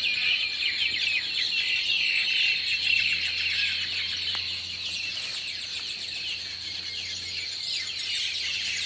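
A large flock of mynas chattering together at their evening roost, many overlapping chirps and calls at once, with a steady high whine running under them.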